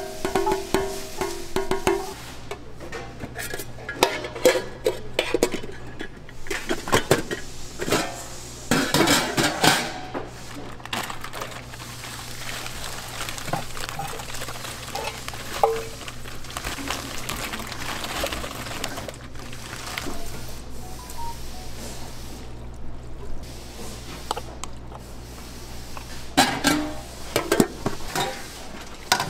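Stainless steel hotel pans clinking and clattering as food is tipped into them: corn kernels poured in, then a plastic bag of chopped filling emptied, over a steady kitchen hum. A steel lid clatters onto a pan near the end, and background music plays for the first couple of seconds.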